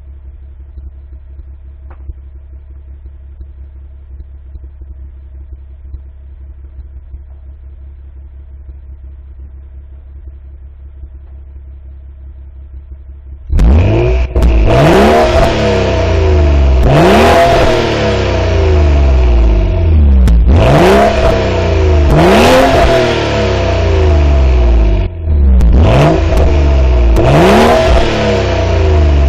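BMW 135i turbocharged inline-six with its standard exhaust, recorded close up from under the car. It idles steadily for about 13 seconds, then is revved again and again in quick blips, each rising and falling, with a little distortion from the close microphone.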